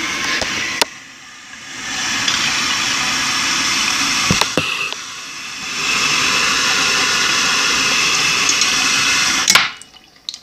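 Bathroom sink faucet running, a stream of water splashing into the basin by the drain. The rush of water dips twice and comes back, with a few sharp clicks along the way.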